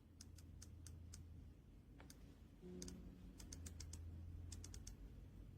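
Keys of an RK Royal Kludge S98 mechanical keyboard being pressed one after another in short, irregular runs of faint, sharp clicks.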